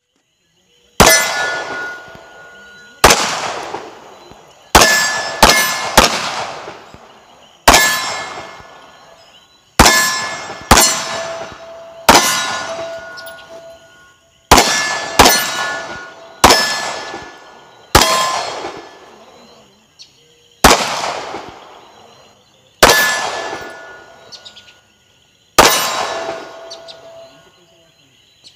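Handgun shots fired one at a time, about sixteen of them at one- to two-second intervals. Each shot is followed by a ringing clang that dies away over a second or so, the sound of a steel target being hit.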